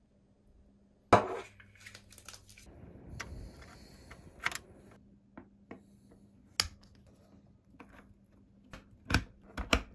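Handling of a plastic USB hub and card reader: a sharp click about a second in, then rustling and a series of small plastic clicks as a USB plug is pushed into a computer's port and an SD card is slid into the hub's card slot.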